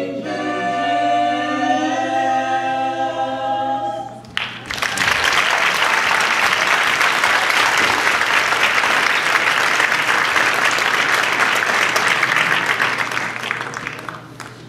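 Small mixed-voice a cappella ensemble holding a final chord, which cuts off about four seconds in. Audience applause follows, then fades out near the end.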